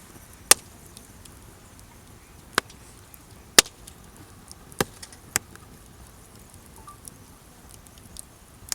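Wood campfire crackling, with five sharp, loud pops spread unevenly through and smaller ticks between them, over a faint steady hiss.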